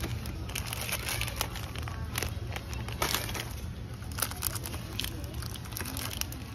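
Plastic snack and chocolate-bar wrappers crinkling and rustling as packets are handled, dropped into a plastic shopping basket and pulled off a shelf, with several sharp clicks among them. A steady low hum runs underneath.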